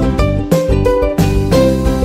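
Background music with plucked-string notes over a steady beat.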